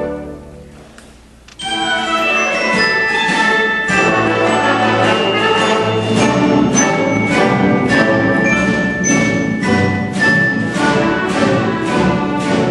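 Symphony orchestra playing: the music dies away to a brief hush, then about a second and a half in the full orchestra comes back in with a lively passage of short, evenly spaced accented notes, about two a second.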